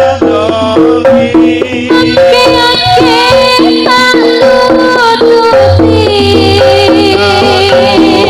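Live East Javanese jaranan music from a gamelan-style ensemble: a fast, repeating melodic figure with percussion, and a high, wavering lead melody over it.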